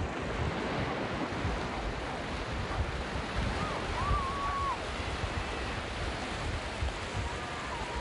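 Ocean surf: small waves breaking and washing up a sandy beach, with wind gusting on the microphone. A faint thin call sounds about four seconds in and again near the end.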